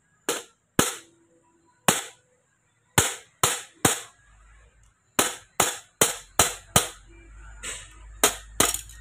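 A steel hammer strikes a punch set into the shift mechanism of an opened Mitsubishi Triton manual gearbox, giving sharp metal-on-metal blows with a short ring. There are about fourteen blows in uneven runs: single taps at first, then quicker clusters of two or three.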